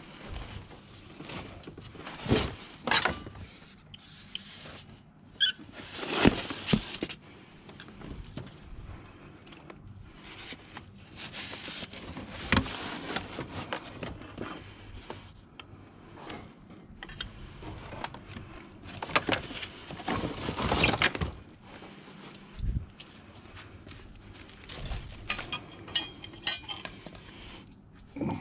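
Scrap metal being handled and worked: irregular metallic clanks, clinks and scrapes, in several clusters a few seconds apart.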